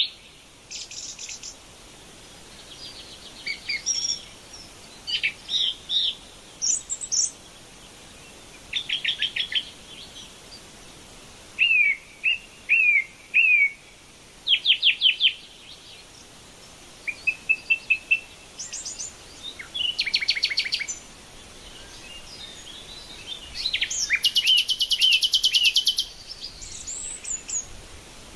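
Wild songbirds calling and singing: a varied run of short high chirps, sliding whistles and quick repeated-note trills, with several different phrases in turn. A longer, loud rapid trill comes about three-quarters of the way through, over a faint steady background hiss.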